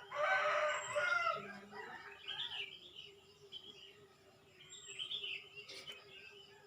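Birds calling in the open: a loud, harsh call lasting about a second and a half at the start, then short chirps a couple of times, over a faint steady drone.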